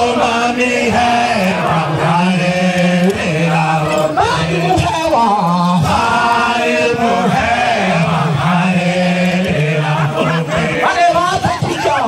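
A group of voices chanting a Sukuma song together, holding long notes that step up and down between a few pitches.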